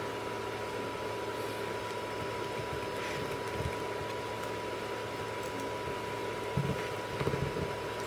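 Steady background hum and hiss with a faint steady high tone. A few soft taps of wires being handled on the toggle switch come near the end.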